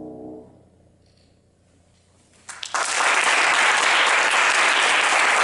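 A grand piano's final chord dies away, followed by about two seconds of near silence. Then an audience breaks into applause, which starts about two and a half seconds in and runs on loud and steady.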